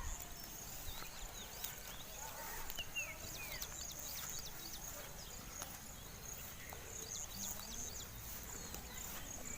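Rural farmyard ambience: many short, high, falling chirps like small birds, scattered through, over a steady high-pitched insect trill.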